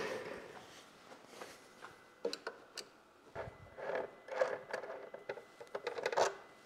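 Faint, irregular clicks and rattles from the Honda Gold Wing's front fender bolts and plastic front fender being worked loose.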